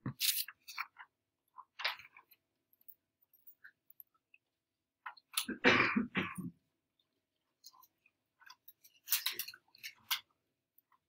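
Quiet classroom with scattered small clicks and rustles, and one louder short noise about halfway through.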